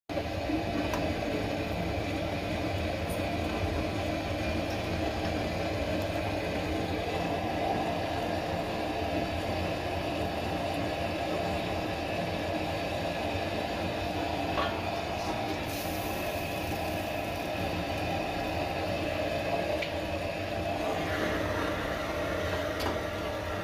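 Commercial gas wok burner running at full flame under a dry wok, a loud steady rumbling noise. A couple of faint clicks and a short hiss come in about two thirds of the way through.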